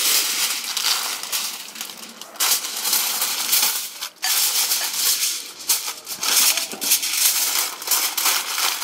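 Aluminium foil crinkling and rustling as a sheet is pulled off the roll, spread out and folded around a wrapped parcel of meat, with irregular crackles throughout.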